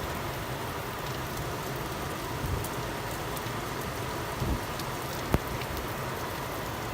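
Steady rain falling, with scattered individual drops ticking and one sharper tap about five seconds in.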